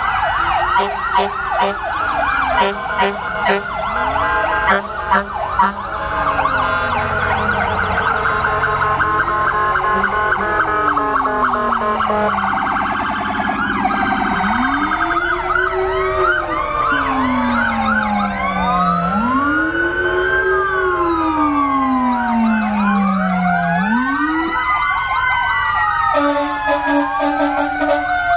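Several fire apparatus sirens sounding at once, electronic wails and fast yelps overlapping, with a deeper siren rising and falling slowly several times.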